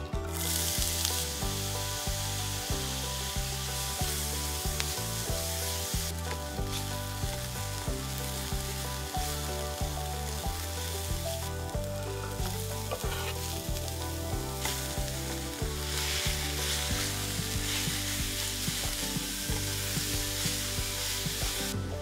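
Diced onions and ground pork sizzling in hot oil in a black iron frying pan while a spatula stirs them. The sizzle drops back briefly a few times.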